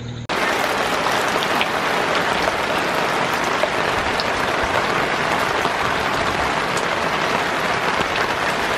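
Steady rain falling, an even hiss of drops on the ground and surfaces that begins suddenly at a cut and holds level.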